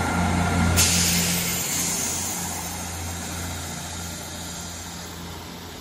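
Class 159 diesel multiple unit's Cummins diesel engines running as the train pulls away, a steady low hum that fades as it draws off. A hiss comes in sharply about a second in and carries on under it.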